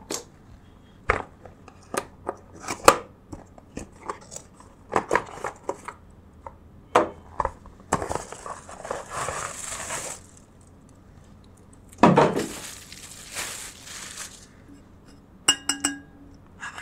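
Cardboard gift boxes being handled and opened, with scattered knocks and clicks and two longer scraping stretches as stainless-steel water bottles are slid out of their boxes. Near the end a steel bottle gives a brief metallic ring.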